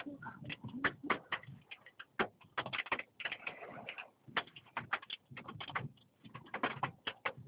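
Hailstones pelting down, an irregular clatter of sharp hits several times a second.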